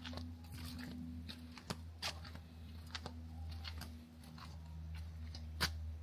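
Footsteps crunching on a trail, irregular short crunches under a steady low hum.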